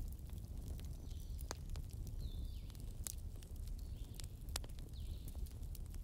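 Wood fire burning: irregular sharp crackles and pops over a steady low rumble of the flames.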